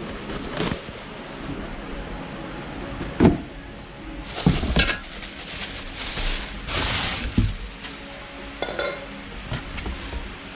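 Workshop clatter: scattered metal knocks and clinks of parts and tools being handled, some with a short ringing tail. The loudest knock comes about three seconds in, and a brief hissing rush comes near the middle.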